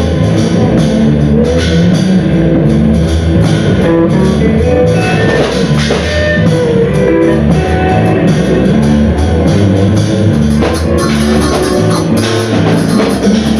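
A band playing live, loud and dense: guitar and bass notes held over busy drum kit playing.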